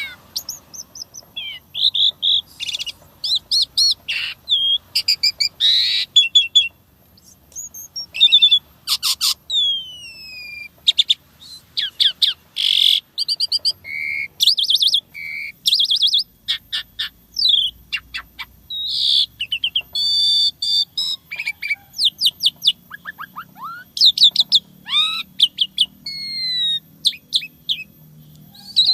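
Asian pied starling (jalak suren) singing a long, varied song: fast trills, rapid clicking runs and clear whistles, several sliding down in pitch, with short gaps between phrases. The song is packed with varied fill phrases (isian) of the kind used to train other songbirds.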